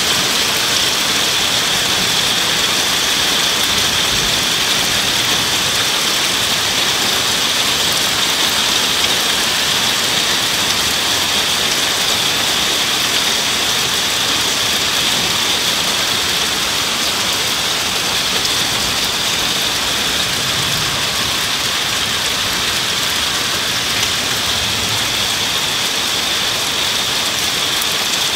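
Heavy thunderstorm rain pouring down in a steady, unbroken hiss.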